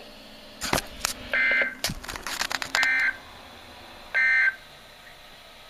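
Emergency Alert System end-of-message data bursts from a NOAA Weather Radio broadcast: three short, identical buzzy digital tone bursts about a second and a half apart, marking the end of the warning message. Several sharp crackles of static come in the first two seconds.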